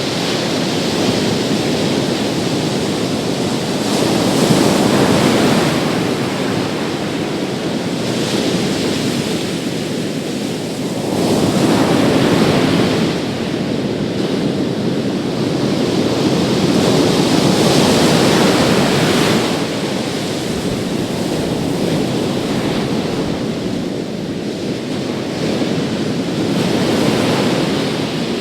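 Big sea waves breaking and washing on a beach, a continuous rushing surf that swells and eases every few seconds, with wind buffeting the microphone.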